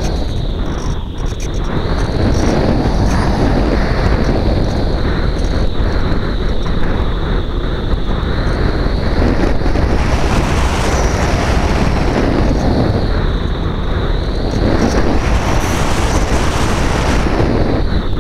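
Wind rushing over the onboard camera's microphone on a Phoenix 2000 RC electric glider in flight, with a high whine from its electric motor that rises and falls in pitch, climbing highest twice.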